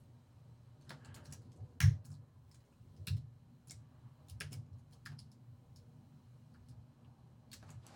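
Computer keyboard keystrokes, scattered and irregular, with two louder strikes about two and three seconds in.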